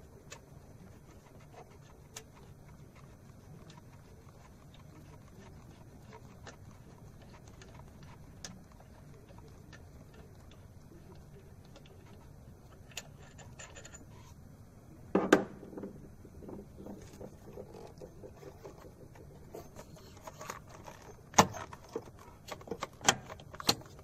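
Metal clinks and clunks from handling parts and tools around the EGR valve of a 2006 Suzuki Liana 1.6: scattered light ticks, one loud clunk about two-thirds of the way in, then a run of sharp metallic clicks near the end.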